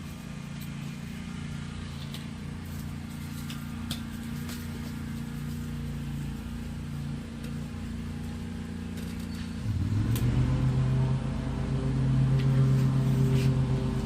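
An engine running steadily; about ten seconds in its pitch dips and then rises, and it runs louder from there. A few faint clicks sit on top.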